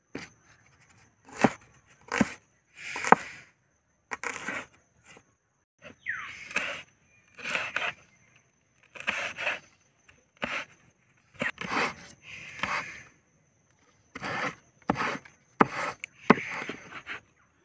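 Large knife cutting through red onion and then green chillies on a wooden board: separate cutting strokes, about one a second and unevenly spaced, some ending in a short scrape of the blade on the wood.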